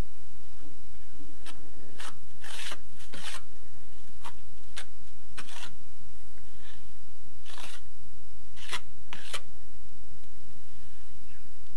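A small trowel scraping and spreading adhesive mortar across the end face of an aerated concrete block: about a dozen short swishes at irregular intervals, over a steady low hum.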